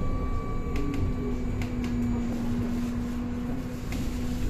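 BKM 321 trolleybus heard from inside while riding: a steady electric hum over low rumble, with a few sharp rattles and clicks from the body.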